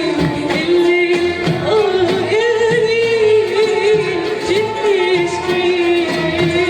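A woman singing a melismatic Arabic song with an Arabic music ensemble accompanying her. She sings long held notes with ornamented turns, rising to a higher note around the middle.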